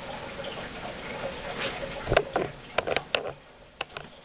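A handful of sharp clicks and knocks, about seven, starting about halfway through, over a faint steady hum.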